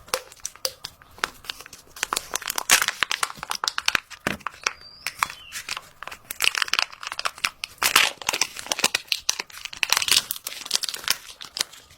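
Irregular crinkling and crackling, coming in clusters of quick rustles.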